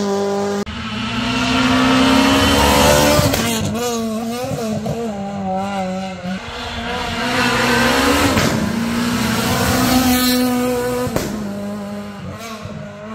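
Rally car engines revving hard as the cars climb a hill-climb road, their pitch rising and falling through gear changes. The sound breaks off sharply a few times as separate passes follow one another.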